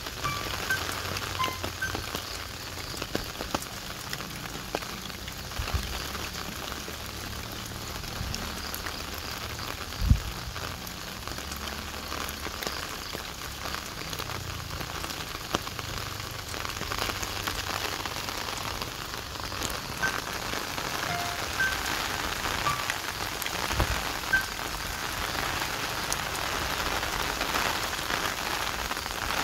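Rain pattering steadily, with soft background music of sparse high notes over a low bass line. There is a single low thump about ten seconds in.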